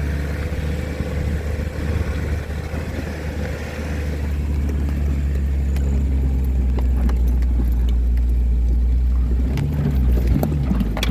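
Vehicle engine and road noise while driving, a steady low drone that grows somewhat louder about four seconds in, with a few knocks and rattles near the end.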